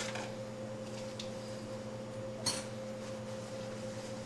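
Filled glass mason jars being turned upside down and set down on a metal sheet pan: a few light glass-on-metal clinks and knocks, the sharpest about two and a half seconds in, over a steady low hum.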